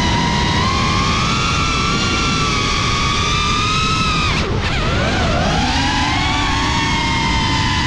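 FPV quadcopter's electric motors and propellers whining in flight over a rushing noise of air. About four and a half seconds in, the pitch drops sharply as the motors slow, then climbs back up as they spin up again.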